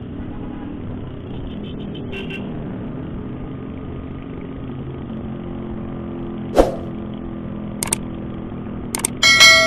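Motorcycle engine running steadily under wind rush, heard from the rider's own bike. Near the end come several sharp clicks and a loud bell-like ding from an edited-in subscribe-button sound effect.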